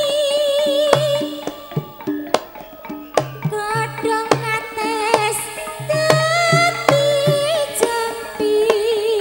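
Javanese gamelan music: a woman's voice holds long wavering notes over regular hand-drum strokes and ringing bronze gong-chime notes.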